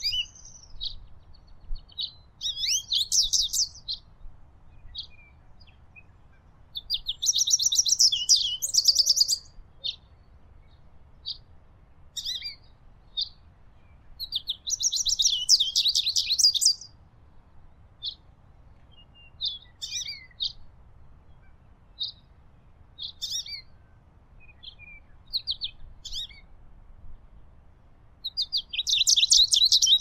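American goldfinch singing: four bursts of fast, high twittering song, each a couple of seconds long, with scattered single chirps between them.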